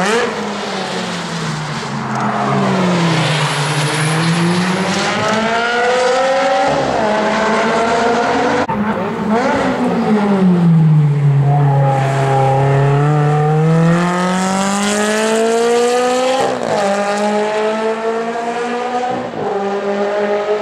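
Ferrari 360 Challenge Stradale's 3.6-litre V8 running hard on track, its pitch sliding down and climbing back up several times as it slows and accelerates through the gears. In the second half there are quick blips of revs, as on downshifts.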